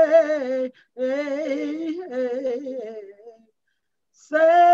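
A woman singing solo and unaccompanied: she holds the end of a sung word with vibrato, then runs on in a wordless, wavering hum. She stops for about a second near the end before starting the next held note.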